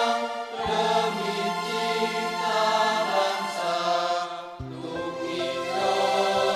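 Background music of sustained choral-style voices holding long notes, the chord shifting about half a second in and again about four and a half seconds in.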